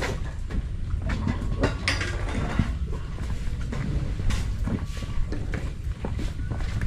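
Footsteps rustling and crunching through dry leaves and brush, many short crackles over a steady low rumble on the microphone.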